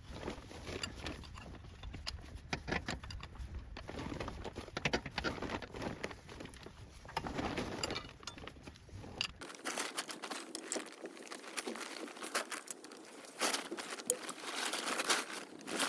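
Irregular clicks, taps and rustling, as of small parts or tools being handled. The sound changes abruptly about two-thirds of the way through, losing its low rumble.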